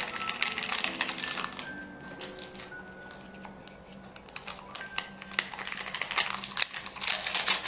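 Rapid keyboard-typing clicks in bursts, heaviest at the start and again near the end, over soft background music with sustained notes.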